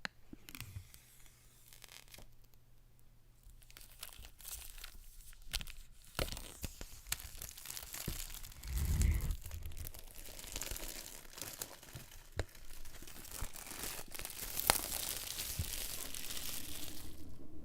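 Packaging of an iPad Pro box being torn open and crinkled by hand, with scattered clicks and handling knocks and a low thump about nine seconds in.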